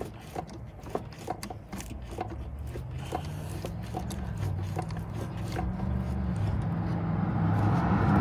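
Oil filter wrench being worked on a spin-on oil filter under a pickup, making scattered light clicks and scrapes as the filter is loosened. A low rumble grows louder toward the end.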